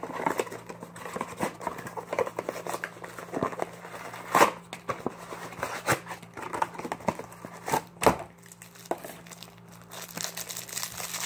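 Packaging of a Topps baseball card hanger box crinkling and tearing as it is opened by hand: irregular crackles, with a couple of louder tears about four and eight seconds in.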